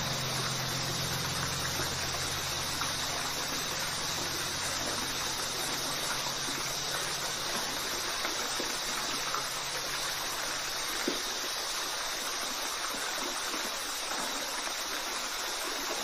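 Waterfall water rushing steadily, an even, unchanging rush of falling water. Low notes of background music fade out during the first few seconds.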